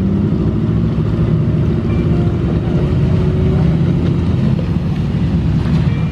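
Jeep engine running steadily as it drives the trail, a loud low rumble whose pitch wavers a little with the throttle.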